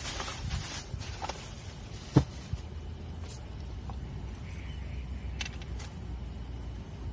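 Low steady outdoor rumble with a few light knocks and clicks of things being handled on a wooden camp table, the sharpest about two seconds in.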